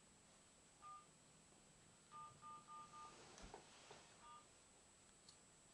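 Faint touch-tone keypad beeps, each a short two-note tone: one, then four in quick succession, then one more, with a few light clicks between them.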